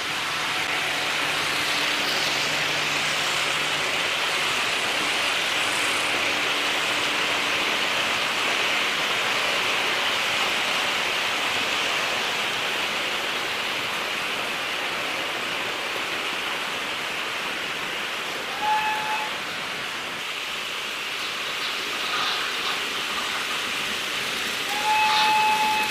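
Märklin H0 model trains running on the layout's metal track: a steady rushing whir of small wheels and motors. A short steady tone sounds about 19 seconds in, and a longer one near the end.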